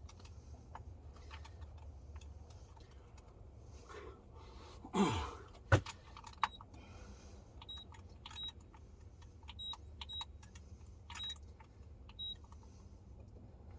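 Handheld digital fish scale beeping briefly about seven times as its buttons are pressed, with small metallic clinks and handling clicks. There is a louder short falling sound and a sharp knock about five seconds in.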